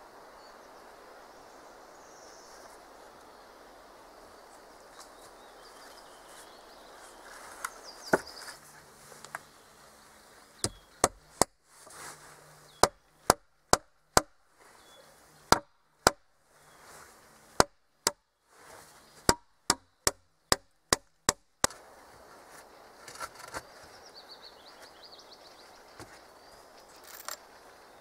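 A run of about twenty sharp strikes on wood, in short groups at about two a second, from a tool at work on the timber of a dugout shelter under construction.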